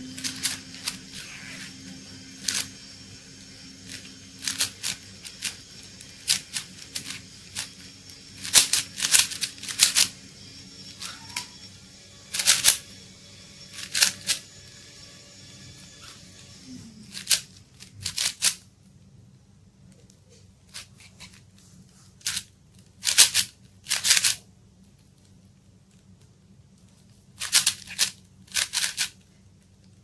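Plastic 4x4 Rubik's cube having its layers turned by hand: irregular runs of quick clicks and rasping turns, with short pauses between.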